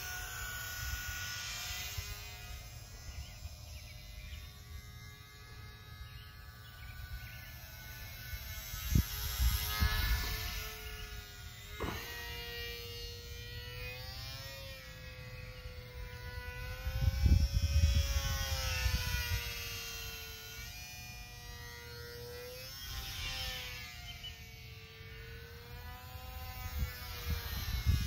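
Parkzone UMX Pole Cat micro RC plane's small electric motor and propeller whining in flight, the pitch rising and falling as the throttle changes and the plane passes. A low rumble swells now and then, loudest about two thirds of the way in.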